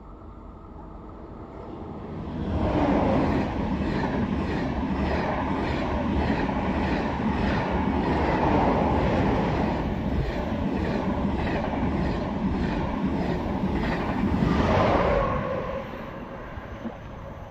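Double-unit TGV Réseau high-speed train passing close along the platform. The rush of wheels and air builds about two seconds in and carries a regular clicking beat of about two a second. It peaks once more as the rear power car goes by near the end, then fades away.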